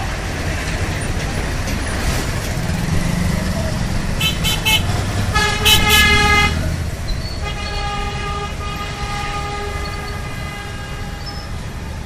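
Dense road traffic with the steady rumble of engines passing close by, punctuated by vehicle horns. There are three quick toots about four seconds in, then a louder, longer honk around six seconds, then a fainter horn held for about three seconds.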